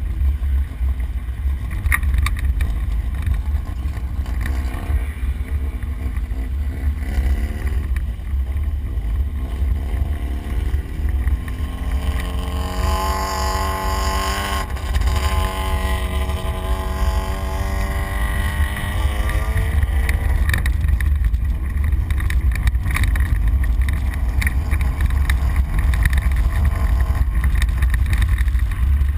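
Explorer prerunner running hard off-road, heard from inside the cab: a heavy low rumble from the truck working over rough ground, with occasional knocks. The engine note climbs in pitch about ten seconds in and falls away again past the middle.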